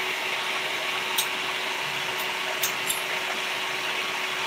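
Steady machine hum and hiss in a workshop, with a few light sharp clicks about a second to three seconds in as a small cut aluminum plate and a knife are handled over a table saw.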